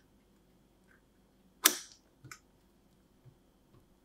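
Stainless steel ice cream scoop working in a tub of vanilla ice cream: a sharp metallic click that trails into a brief scrape about a second and a half in, then a fainter click half a second later.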